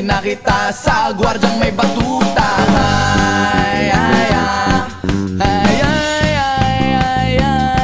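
Background music: an upbeat band track with a drum beat, moving into held, sliding notes about two and a half seconds in.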